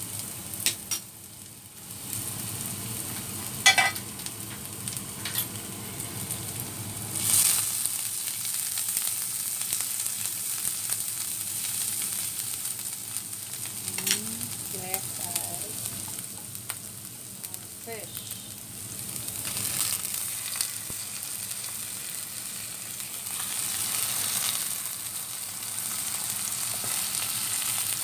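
Minced garlic, ginger and sliced red chili sizzling in hot oil in a pan with a steady hiss, stirred now and then, with a few sharp clicks along the way.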